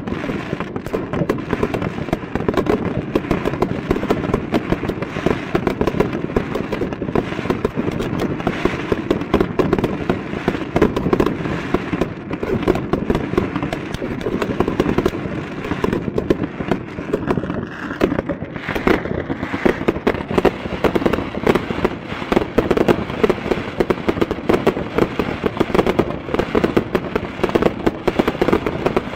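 Fireworks finale: many aerial shells bursting in a dense, continuous barrage of rapid bangs and crackles with no break, starting suddenly.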